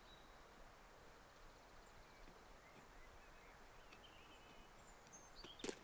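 Near silence outdoors, with a few faint, short bird chirps spread through it and a soft crunch near the end.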